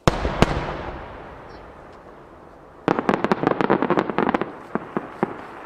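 A large 12-inch (size 10, shakudama) aerial firework shell bursts with a sudden deep boom and a second sharp report, then a long fading rumble. About three seconds in, a rapid crackle of many small pops lasts about a second and a half, then a few last scattered pops.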